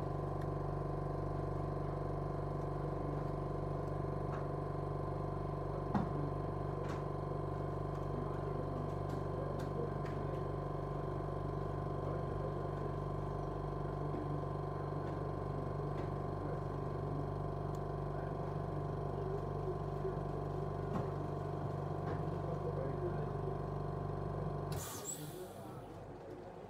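Steady electric motor hum from bench equipment, running evenly with a single sharp click about six seconds in. It cuts off suddenly near the end with a short burst of hiss.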